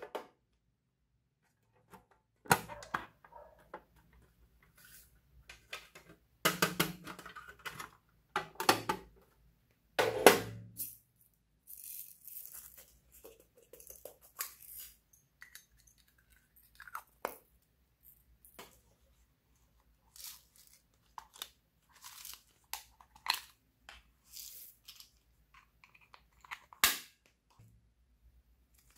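Glitter flakes and sequins being poured and shaken onto slime in a glass dish while hands handle small plastic squishy toys: irregular crinkling and crackling, broken by several sharp knocks.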